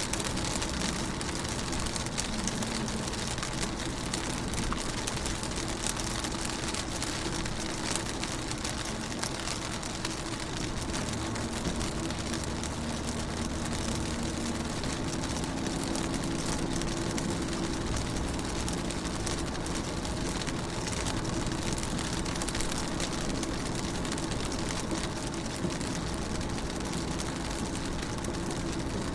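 Steady rain falling on a car's windows and bodywork, a dense patter of many small drop ticks, with a steady low hum underneath.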